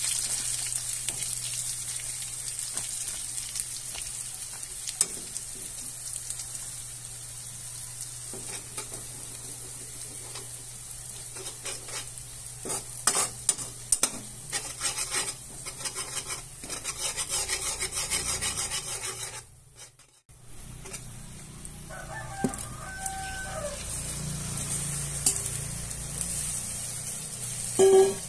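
Minced garlic and melting butter sizzling in a hot pan, with a spatula scraping and stirring against the pan in bursts of clicks. Near the end there is a loud burst as raw shrimp are tipped into the pan.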